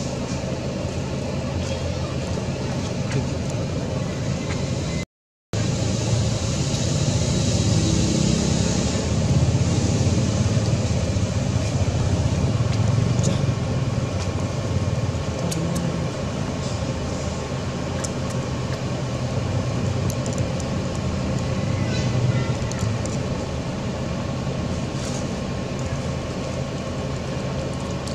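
Steady low rumbling background noise, broken by a brief dropout about five seconds in.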